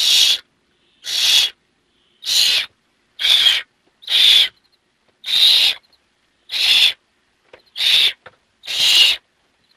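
Barn owl owlet giving its harsh hissing begging call, a breathy screech of about half a second repeated roughly once a second, about nine times.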